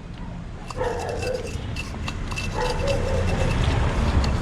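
A dog barking, twice, over a steady low hum.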